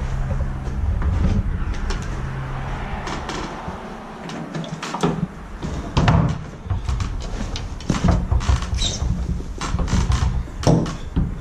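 A series of knocks and clatters over a low, steady hum. The hum fades away about two and a half seconds in and comes back around six seconds in.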